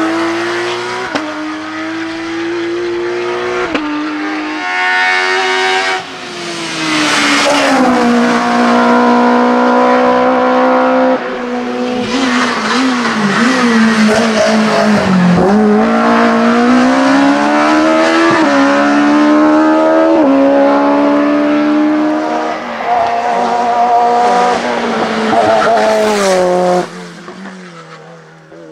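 Hillclimb race car engines at full throttle, one car after another, a Porsche 911 and a VW Scirocco among them. The engine note keeps climbing and then dropping back at each upshift, several times over. The sound falls away suddenly near the end.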